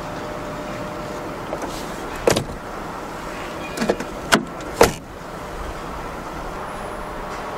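A BMW E39 sedan's front passenger door being shut: a few sharp clunks and knocks, ending in a solid door slam about five seconds in.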